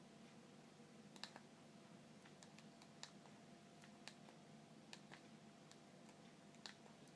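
Near silence with faint, irregular clicks, roughly one or two a second, some in quick pairs.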